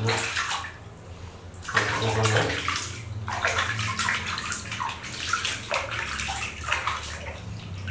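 Water splashing and sloshing in a plastic basin as hands scoop it up and pour it over a baby monkey being bathed, in uneven bursts of splashes.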